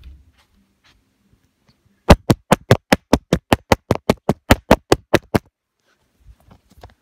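Silicone pop-it fidget toy bubbles pressed in quick succession: about sixteen sharp pops, roughly five a second, starting about two seconds in and lasting about three seconds.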